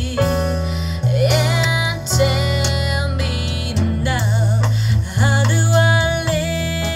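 Recorded music played back over DIY floor-standing hi-fi loudspeakers driven by an Adcom GFA-565 solid-state amplifier. A female voice sings with vibrato over a strong, sustained bass line.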